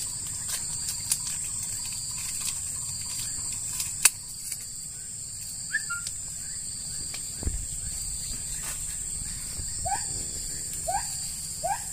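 Steady high-pitched insect drone, with short rising bird calls repeating several times in the second half. Light clicks and rustles come from hands working dry coconut husk fibre, one sharper click about four seconds in.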